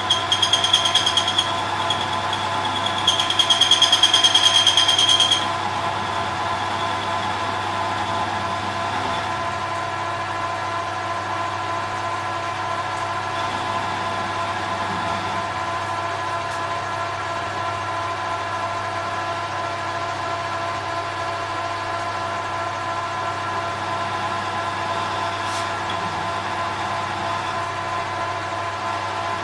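Small metal lathe running steadily with a gear whine. In the first five seconds the cutting tool squeals shrilly twice on the bar being turned, each squeal lasting about two seconds.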